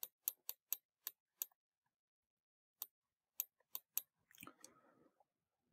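Faint, sharp clicks from a pen input device as letters are handwritten on a computer screen, about ten in two quick runs, with a faint soft rustle a little after the last click.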